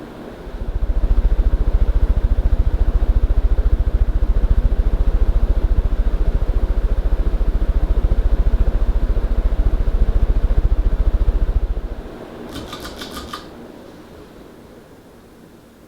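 LA Fan Co. Aerostar Tiffany ceiling fan running, its airflow buffeting the microphone in a loud, fluttering low rumble that drops off suddenly about twelve seconds in. Just after that comes a brief rapid run of clicks.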